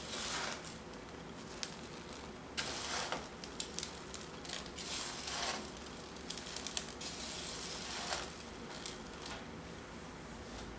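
Small hard chocolate crunch and caramel nut crunch pieces rattling onto a tray as a hand sprinkles them over a chocolate-coated cake bar, in about six short bursts with sharp clicks.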